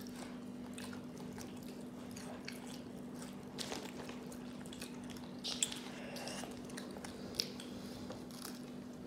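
A person quietly chewing and eating French fries, with scattered soft mouth clicks and smacks, over a steady low hum.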